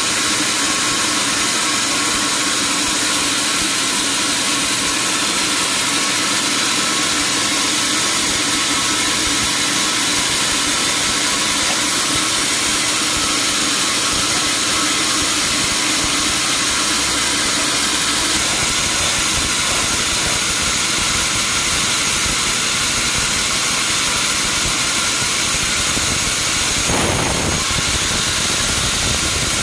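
Sawmill machinery running steadily, a constant hissing mechanical noise, with a brief knock near the end.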